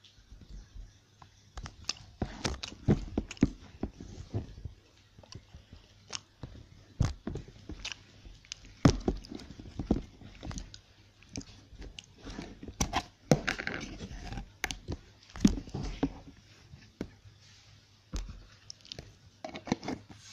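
Slime being poked, squished and handled by hand, giving irregular sharp clicks and short sticky crackles, along with a plastic slime tub being handled and tipped out.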